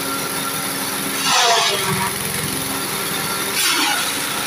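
Engine-driven forage chopper machines running steadily, with two louder rushing bursts, about a second and a half in and again near the end, as leafy branches are fed into the blades and shredded.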